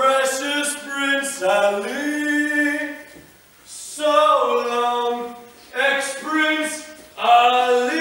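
Stage cast of men and women singing together without accompaniment, in phrases of held notes. There is a short break between phrases about three and a half seconds in.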